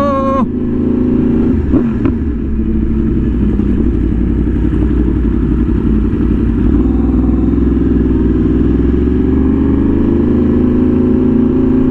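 Yamaha R1M's crossplane inline-four running steadily while riding, with a brief rising note right at the start; the engine note climbs slowly over the last few seconds as the bike picks up speed.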